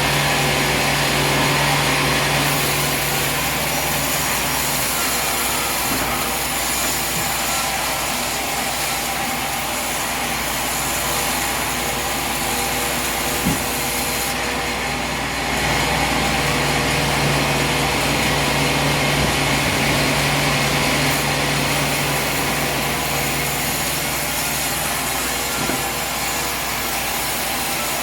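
A sawmill running steadily, its saw cutting through a log, with a low machine hum that fades and comes back and a single short knock about halfway through.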